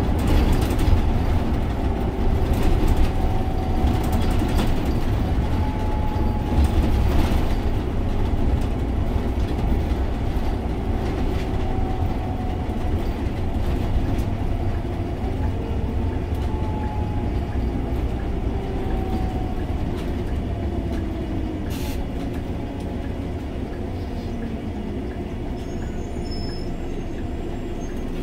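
Cabin noise inside a Scania OmniLink three-axle city bus under way: its biodiesel engine and tyre and road noise run steadily, with faint whining tones sliding up and down in pitch. The noise eases gradually toward the end as the bus slows.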